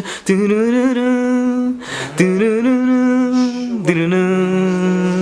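A man singing a melody without words, humming it in long held notes, imitating an electronic track's tune: three sustained notes, the last one a step lower.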